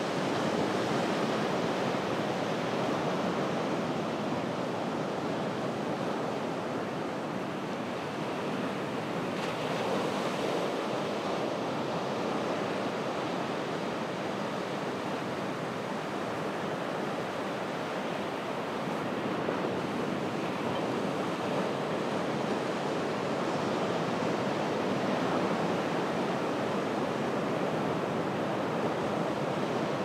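Ocean surf breaking and washing up a beach at low tide: a continuous rush of water that swells a little now and then.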